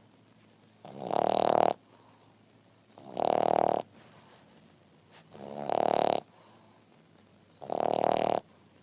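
French bulldog snoring in its sleep: four rattling snores, each about a second long and coming roughly every two seconds, each swelling briefly and then cutting off sharply.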